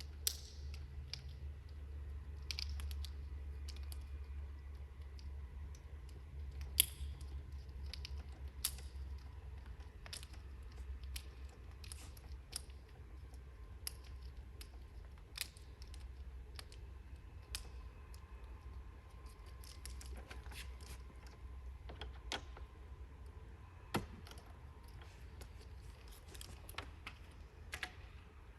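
Scattered light clicks and taps of hands working cable clips and cords under a standing desk, over a low steady hum.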